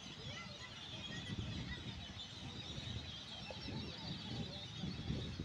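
A flock of birds chattering in a dense chorus of short, overlapping high chirps and squeaks, over a low rumble.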